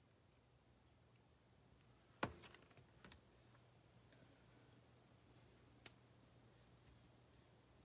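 Near silence with a steady low hum and a few small clicks and knocks: a sharp one about two seconds in with some lighter ones after it, and another near six seconds.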